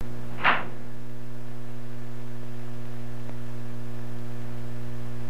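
Steady low electrical hum with a buzzy edge. About half a second in there is one short crisp snap, the stiff X-ray film sheet being put up on the lightbox viewer.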